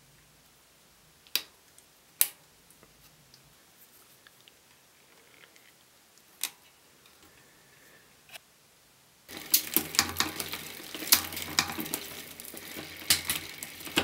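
A few sharp single clicks of small bicycle parts and tools being handled. About nine seconds in, a dense run of rapid mechanical clicking and ticking starts suddenly, with a low hum underneath.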